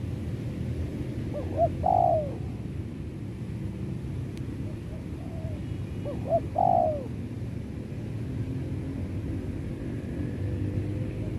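Spotted dove cooing twice, about a second and a half in and again about six seconds in. Each phrase is one or two short notes followed by a longer note falling in pitch. A low steady rumble runs underneath.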